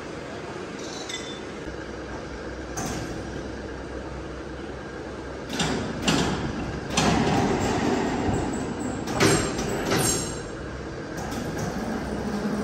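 Steady machinery noise with a run of loud metal clanks, knocks and scrapes in the middle, some of them ringing.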